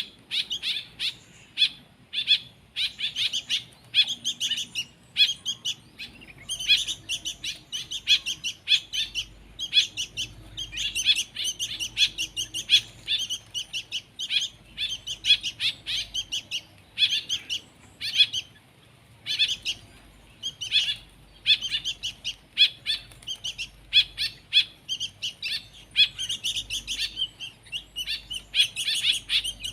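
Hand-reared baby songbirds chirping in rapid bursts of short, high calls with brief pauses between bursts, the begging calls of nestlings being fed.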